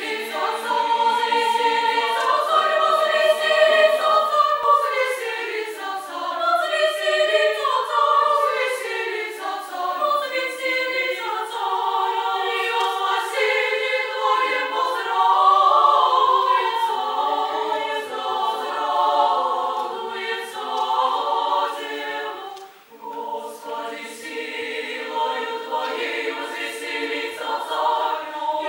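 Female chamber choir singing a cappella in several upper-voice parts, with a short break between phrases about 23 seconds in.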